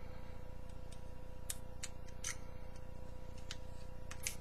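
Irregular small clicks and scrapes of a pocket knife blade prying at a small plastic part, working a vape tank's replacement coil loose, over a faint steady hum.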